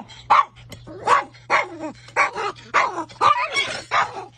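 Small dog barking and yapping repeatedly at a hen, about two short barks a second.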